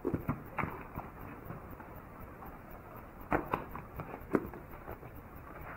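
Handling noises: a few light clicks and knocks, bunched near the start and again about three and a half to four and a half seconds in, with no power tool running.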